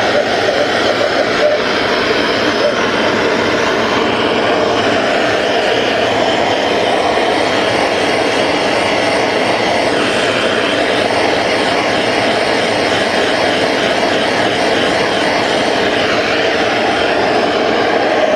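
Hand-held gas torch burning with a steady rushing hiss as its flame heats a copper boiler for silver soldering.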